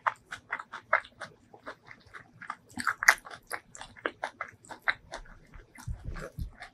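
Close-miked chewing of a mouthful of food, a dense run of irregular wet clicks and light crunches, with a few low thumps near the end.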